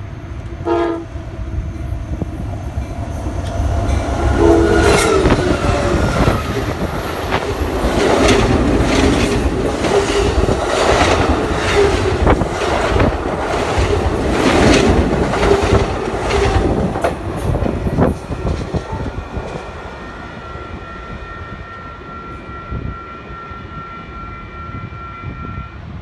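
Amtrak double-deck passenger train sounding its horn in two short blasts, then running past at speed with a loud rumble and a rapid run of wheel clicks over the rail joints. The rumble fades after about 18 seconds, leaving a faint steady high tone.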